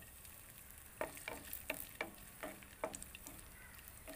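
Raisins frying in hot ghee in a nonstick pan: a faint sizzle with a run of small sharp pops, about three or four a second, starting about a second in.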